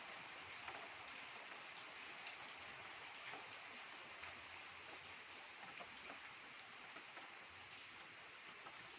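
Faint steady rain, with scattered light ticks of single drops.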